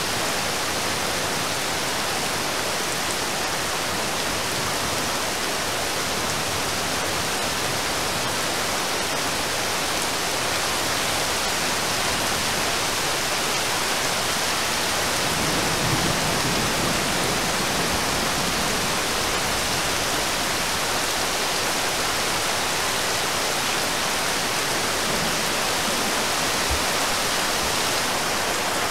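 Steady rain falling on a river's surface: an even, dense hiss, swelling slightly around the middle.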